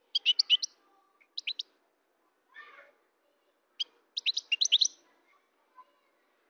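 European goldfinch singing: quick bursts of high, tinkling twittering notes, a short phrase at the start, a brief one after a second and a longer one about four seconds in, with a softer, lower call between.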